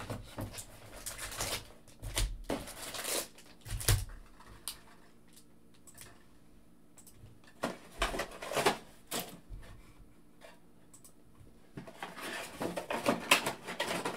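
Foil trading-card packs being pulled out of a hobby box and stacked on a table: crinkling wrappers and light knocks in bursts, with a short lull near the middle.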